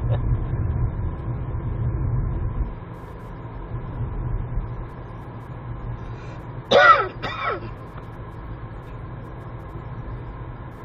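Inside a moving car: a steady low rumble of engine and tyres that eases off a little under three seconds in. About seven seconds in, a person in the car makes a short, loud two-part vocal sound, like a cough or throat clearing.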